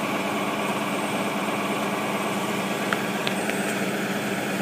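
Vehicle engine idling with a steady hum, heard from inside a car's cabin, with a few faint clicks about three seconds in.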